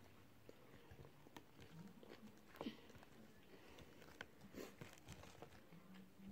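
Faint chewing and mouth sounds with scattered small clicks, against near silence.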